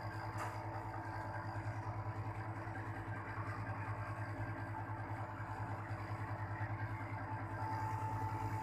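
Panasonic split air conditioner's outdoor unit running during a refrigerant charge: a steady low compressor hum with the condenser fan. A thin steady tone joins in near the end.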